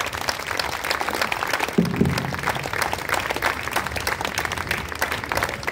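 Audience applauding: dense, steady clapping from many hands, with a short low pitched sound about two seconds in.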